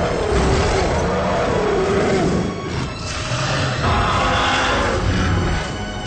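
Dramatic film score with a werewolf monster's long, wavering roar over it as the creature burns.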